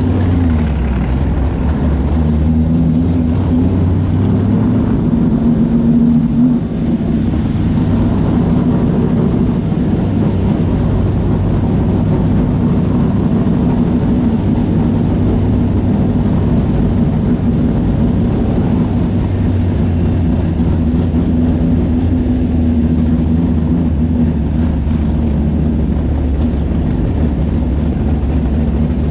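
Race car engine running at low revs as the car rolls slowly, heard from a camera mounted on the car beside the engine; the engine note lifts a little a few seconds in and again past the middle.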